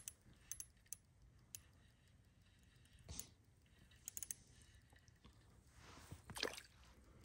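Near silence broken by a few faint, sharp clicks from a small ice-fishing reel being handled, spaced irregularly a second or more apart, with a slightly fuller rattle near the end.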